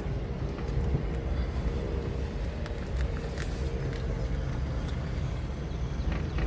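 Car driving along, its engine hum and road rumble heard from inside the cabin, with a few faint clicks about three seconds in.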